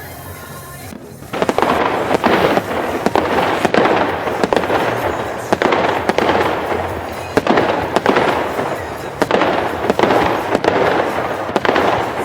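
Fireworks display: a dense run of bangs and crackling bursts that starts about a second in and keeps going.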